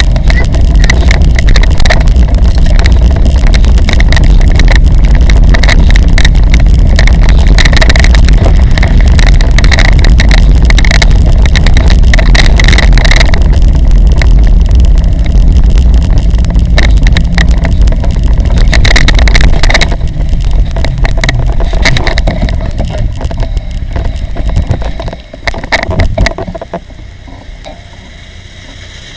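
Heavy wind buffeting on the microphone mixed with the rumble of wheels rolling over road and paving while cycling with a child trailer in tow. The noise drops away sharply about three-quarters of the way through as the bike slows.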